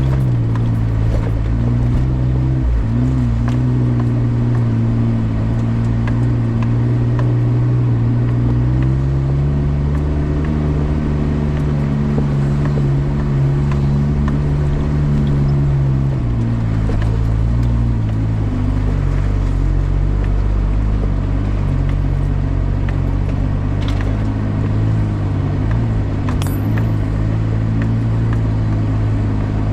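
Suzuki Jimny JA11 engine running steadily while driving, with a deep rumble; its pitch rises slightly about a third of the way in and drops about halfway through as the revs change.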